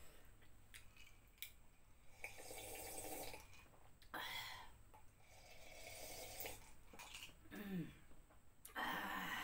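A person sipping and slurping a drink from a mug, with swallows, after a few light clicks at the start. Around three quarters of the way through comes a short falling voice sound, followed by a breathy exhale near the end.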